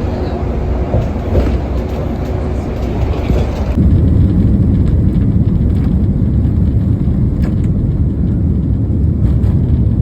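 Steady low rumble of a vehicle in motion, changing abruptly about four seconds in.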